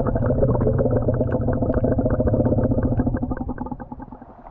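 An engine running steadily with a rapid, even putter. It swells up at the start and fades away near the end.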